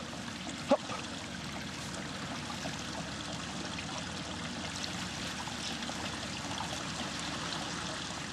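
Garden water feature running, a steady stream of splashing, flowing water.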